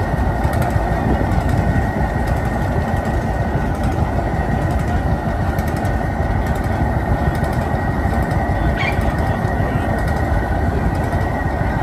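Landini hot-bulb tractor's single-cylinder two-stroke engine running steadily, with a thin high whine over its low rumble.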